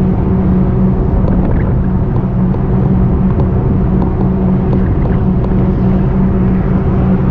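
Steady rumble of wind and road noise from a moving e-bike, with a steady low hum and a few faint ticks.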